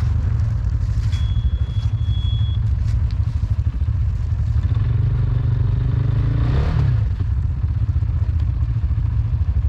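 Quad bike (ATV) engine running under load as it climbs a steep slope, the revs rising about six to seven seconds in. Leaves and ground scrape and crackle under the tyres.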